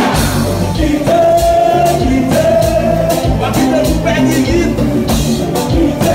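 Haitian konpa band playing live, a sung melody over a steady drum beat and bass.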